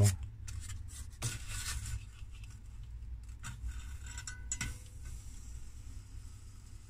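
Foam blocks and a metal cutting template being handled and slid into place on a hot-wire foam cutter's table: scattered light clicks and scrapes, with a cluster of clicks a little past the middle.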